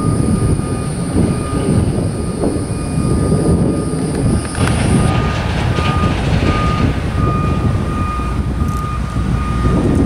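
Wind buffeting the microphone, an uneven rumble, with a faint beeping repeating in the background.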